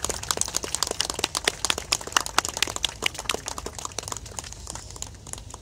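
Scattered applause from a crowd of spectators: many separate hand claps at an uneven pace, thinning out near the end.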